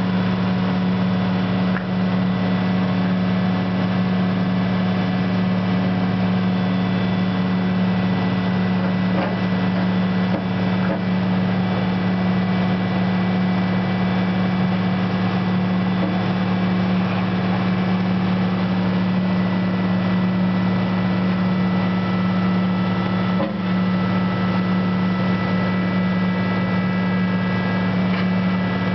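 CAT 315 excavator's diesel engine running at a steady speed, a constant hum that does not change in pitch, while the bucket is worked slowly over loose dirt.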